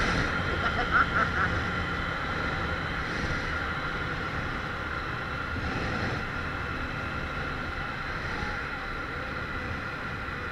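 Harley-Davidson Street 500 V-twin running steadily on the move, mixed with steady wind and road noise, as heard from a chin-mounted helmet camera.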